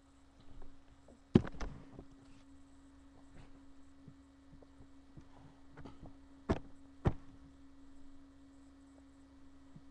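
Steady low electrical hum from the webcam recording, broken by a few sharp knocks: a loud one about a second and a half in, then two more about five seconds later.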